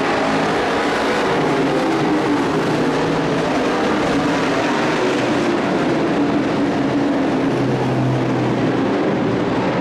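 Engines of a pack of dirt-track stock trucks racing around the oval, several running at once in a steady, loud drone, with one lower engine note standing out about eight seconds in.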